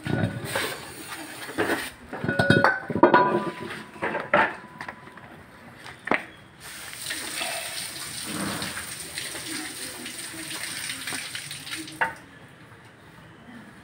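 Metal brake parts and tools clinking, with liquid splashing, while a rear drum brake is washed in a tub of cleaning fluid and wiped down. About six and a half seconds in, a steady hiss starts and runs for some five seconds.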